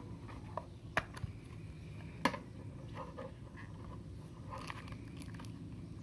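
Plastic clicks and small rattles from the Perfin PFRBVC02 robot vacuum's dust bin being handled and unclipped, with two sharper clicks about one and two seconds in.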